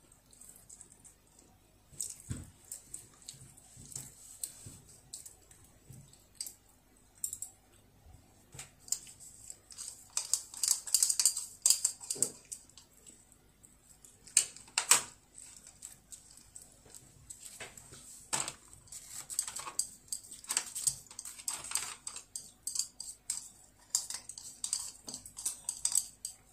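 A child eating: utensils click and scrape against a rice bowl and a small food tray. After a near-silent first two seconds, the clicks come irregularly and are busiest from about ten seconds in.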